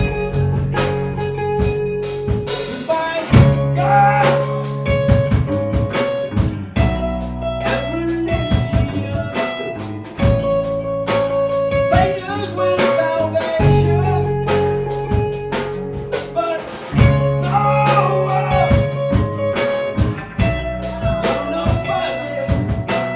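Live band playing a blues-rock song: a drum kit keeps a steady beat under electric guitar and sustained low notes, with no words sung.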